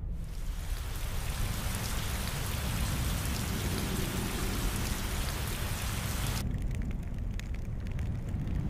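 Steady rain hissing. About six and a half seconds in the hiss cuts off sharply, leaving a duller low rumble with faint scattered ticks.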